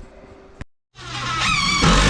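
Faint room tone that cuts out with a click into a moment of dead silence, then a loud music sting with a wavering pitch swells up about a second in.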